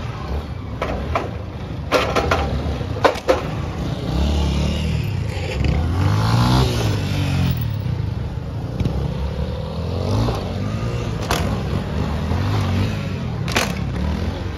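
Off-road trail motorcycle engines revving up and down at low speed through a course, the pitch rising and falling several times near the middle. A few sharp knocks stand out, about two and three seconds in and twice near the end.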